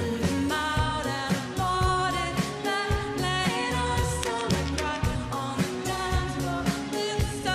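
A woman singing a pop song live with a band: her voice rides over a steady drum beat, bass and electric guitar.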